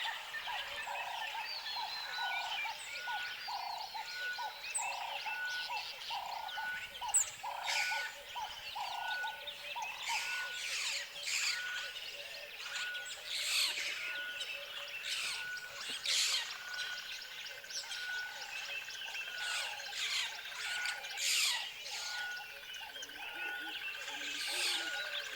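Tropical forest ambience of many birds chirping and trilling together. A short single note repeats about every two-thirds of a second. Lower calls repeat at a similar pace through the first ten seconds or so.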